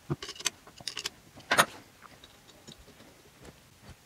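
Small metal clicks and taps as a hand tool and parts are worked on an aluminium two-stroke engine crankcase being assembled: a quick cluster of clicks in the first second, one louder knock about a second and a half in, then a few faint ticks.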